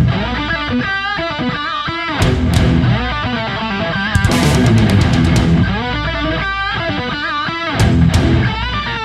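Hard rock music led by distorted electric guitar, with bent and wavering lead notes over a steady bass and drums.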